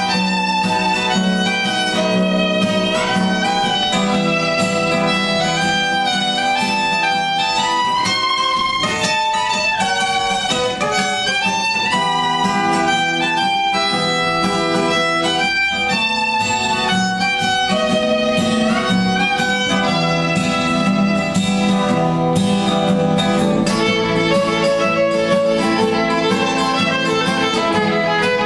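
Violin playing a melody over acoustic guitar accompaniment.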